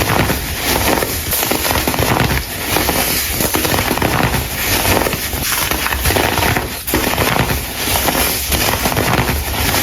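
Dried baking soda crumble being crushed: a loud, dense crackling crunch that swells and eases roughly once a second.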